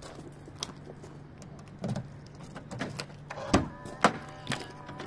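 Peugeot 407's driver door being opened: a few handle clicks and knocks, then a solid clunk about three and a half seconds in and a sharp click just after, followed by a faint steady whine. A low steady hum runs underneath.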